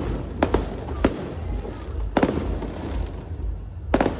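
Fireworks bursting in a display: sharp bangs at irregular intervals, one at the start, a quick pair about half a second in, one at about a second, one just after two seconds and a close double near the end, over a continuous low rumble.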